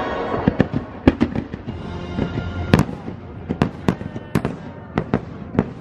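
Fireworks going off in an irregular string of sharp bangs and crackles, with music playing underneath.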